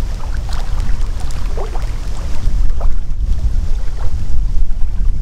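Wind buffeting the microphone: a loud, uneven low rumble, with a few faint short chirps over it.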